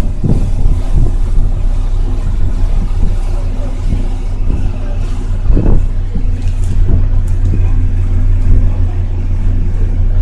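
Car ferry's engine droning steadily with a low, even hum, heard on the open deck with wind rushing over the microphone and a stronger gust a little over halfway.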